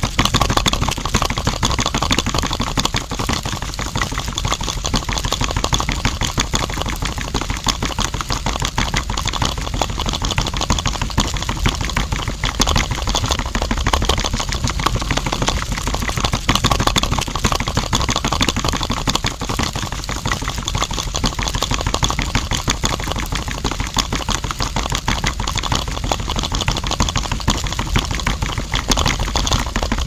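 Small electric motor turning the tin-can drum of a model concrete mixer on a miniature tractor trailer, running with a steady, fast rattling buzz.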